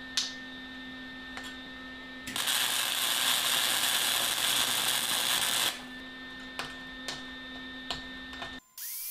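Flux-core wire-feed welder arc crackling and sizzling steadily for about three and a half seconds, between two pauses that hold a steady hum and a few light clicks from handling the steel nippers. The sound cuts off near the end.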